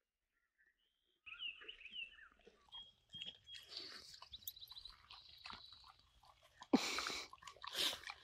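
Faint sounds of a dog chewing, with a few brief high squeaks and a louder rustle about seven seconds in.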